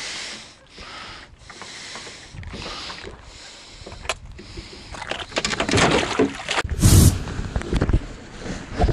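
Handling noise on a small fishing boat: rustling and scattered knocks as a blackfish is put into a plastic cooler and the angler moves about the deck. The noise gets louder about five seconds in, with one loud bump about seven seconds in.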